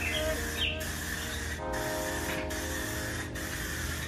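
Aerosol can of 2K clear coat, fired through a pistol-grip trigger handle, hissing as the clear is sprayed on in passes, with a short break a little under once a second.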